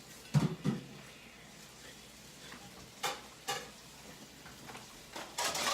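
Knife cutting into a piece of cornflake-crusted baked chicken: a few short crunches and scrapes, then a longer scrape near the end.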